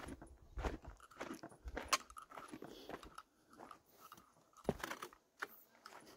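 Footsteps crunching on a dry, rocky dirt trail, with uneven steps and small clicks of grit and twigs underfoot.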